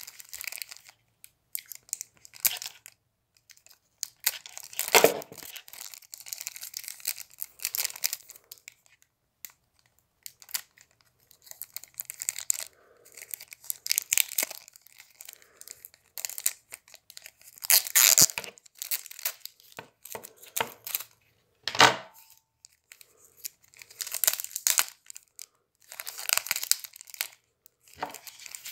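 Clear plastic shrink-wrap on a deck of trading cards being slit with a utility knife and pulled off: irregular crinkling and tearing, with a few sharper, louder snaps.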